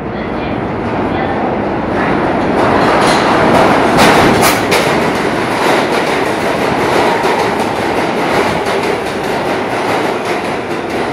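A New York City Subway Kawasaki R143 train entering the station. Its steel wheels rumble on the rails and grow louder over the first few seconds. A cluster of sharp clacks comes about four seconds in as the cars pass close by, then a steady rumble continues as the train slows along the platform.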